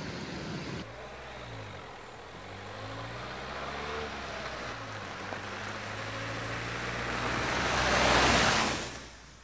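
Briefly rushing stream water, then a Dacia Sandero Stepway driving on a gravel road, its engine and tyres growing steadily louder as it approaches. It passes close by about eight seconds in, with a loud surge of tyre and road noise that falls away quickly.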